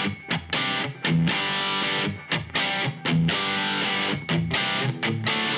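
Electric guitar played through an IK Multimedia X-Drive distortion pedal on one of its presets: distorted chords struck in short stabs, with quick stops between them.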